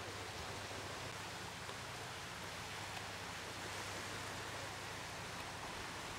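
Steady outdoor lakeshore ambience: an even hiss of wind and small lake waves washing on a pebble shore, with a faint steady low hum underneath and no distinct events.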